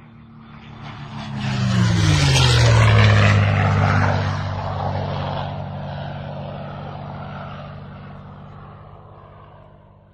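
Propeller airplane flying past: the engine and propeller note swells, drops in pitch about a second or two in as it passes, then fades away.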